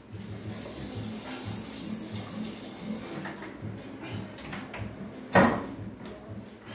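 Kitchen handling sounds: a steady hiss for the first three seconds, then a single sharp knock about five and a half seconds in as something is set down on the counter by the sink.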